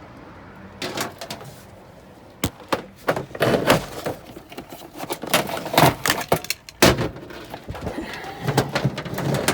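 Irregular clunks, knocks and rattles of cords and tools being handled, loudest in the middle and about seven seconds in.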